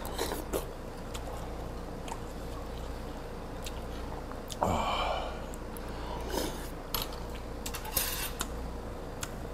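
Metal spoon clinking and scraping against a pot of sundae-guk, with slurps of the hot soup, over a low steady hum. The loudest moment is a short burst about halfway through.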